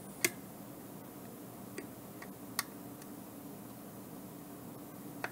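A handful of short, sharp ticks, the loudest just after the start and another about two and a half seconds in, as a soldering iron tip works the solder joints of an 8-pin surface-mount chip with a metal pick wedged under it. A steady low hum runs underneath.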